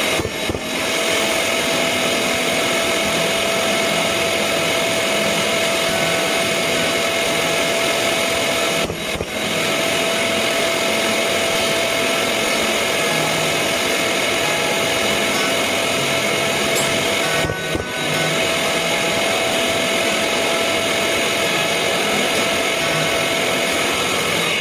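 Long-reach drywall sander with a dust-extraction hose running steadily while sanding joint compound on drywall seams, with a steady whine over a loud hiss. The sound dips briefly twice.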